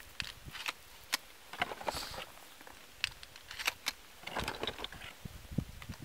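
Hands loading a black long gun: a few separate sharp metallic clicks from the action, with dry leaves rustling underfoot around the middle.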